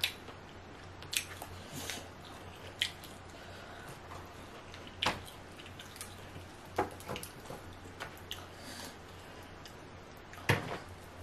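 Close-miked eating sounds: sporadic wet mouth clicks and chewing, then king crab leg shell being cracked and pulled apart by hand, the loudest sharp crack near the end. A low steady hum sits underneath.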